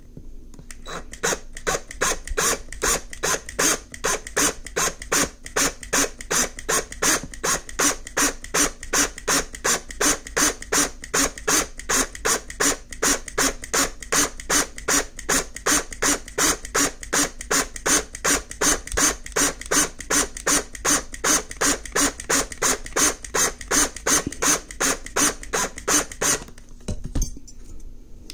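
A power drill's bit drilling out the rivet post of a die-cast toy car base, cutting metal with an even rasping pulse about two to three times a second over a faint steady hum. It stops about 26 seconds in.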